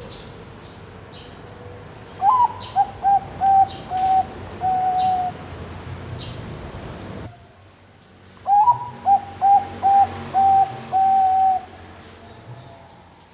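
Zebra dove (Bangkok perkutut, a contest-bred song dove) cooing its song twice. Each phrase opens with a rising note, runs into a string of short coos and ends on longer held coos. Faint high chirps sound in the background.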